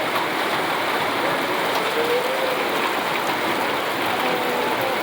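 Heavy rain pouring down steadily, a dense, even hiss of rain hitting surfaces during a hailstorm.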